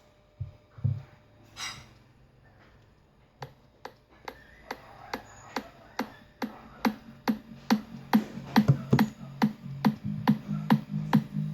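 Electronic dance music with a steady beat of about two and a half strokes a second, played through a homemade speaker during a sound test. Heavy bass comes in about halfway through. A few knocks are heard before the music starts.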